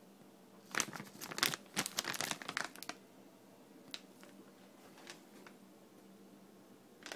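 Plastic pet-food bag being handled, crinkling in a quick run of sharp rustles for about two seconds, followed by a couple of faint clicks.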